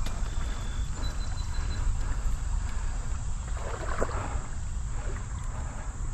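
Water sloshing and splashing as someone wades through a shallow, muddy creek, over a steady low rumble of wind on the microphone; a louder splash about four seconds in.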